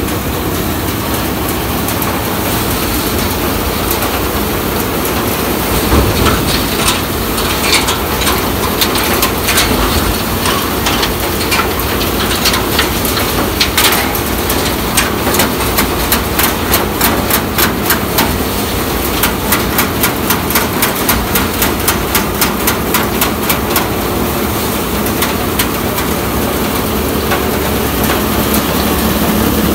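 Freshly repaired tractor-driven Madho Engineering paddy thresher running at steady speed as bundles of paddy are fed into its drum, with fast runs of sharp clicks and knocks from about six seconds in, densest around the middle.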